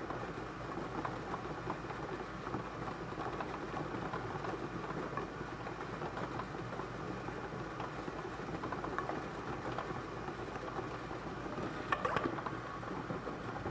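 Bingo ball blower machine running: a steady rush of air with the balls rattling and ticking as they tumble, and a brief cluster of louder clicks near the end.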